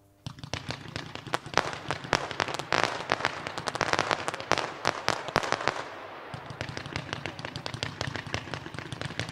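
Lidl's Fantastic World firework battery firing. A sudden start a moment in sets off a dense, rapid run of crackling and popping that is heaviest in the middle, eases briefly about six seconds in, then carries on.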